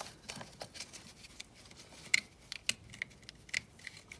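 Light, scattered clicks and rustling of plastic electrical connectors and wiring handled by gloved hands, as an oxygen sensor harness connector is lined up to be plugged in, with a few sharper ticks of plastic on plastic.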